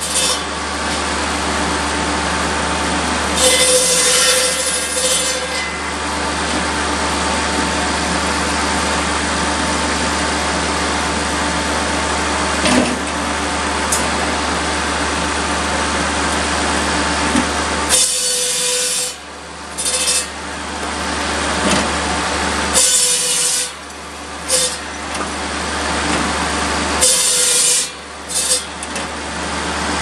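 Tractor-driven buzz saw cutting sawmill slabs and pole wood into firewood. The large circular blade bites through the wood over the steady drone of the Kubota B7100's three-cylinder diesel and the spinning blade. The first part is one long run of cutting, and in the later part the blade makes several shorter cuts with brief let-ups between them.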